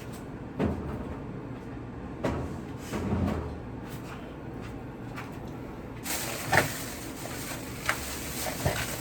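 Scattered knocks and thumps of grocery packages being handled and set down, with a louder knock a few seconds in and another near the end.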